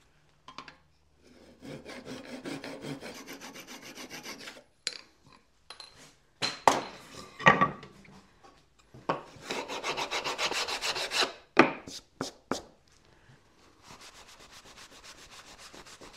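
Handsaw cutting a protruding wooden peg off flush with a hardwood board: two spells of quick, even saw strokes with a few sharp knocks between them. Near the end, a paper towel rubs across the board's surface.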